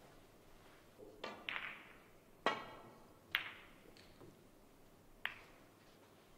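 A snooker shot: the cue tip clicks against the cue ball, then the balls knock together with sharp, ringing clicks, about five in all over some four seconds. The loudest click comes a little past two seconds in.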